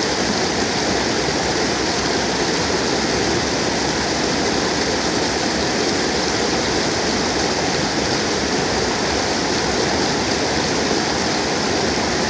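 Muddy floodwater pouring over a low drop and churning in foam below it: a steady, unbroken rushing.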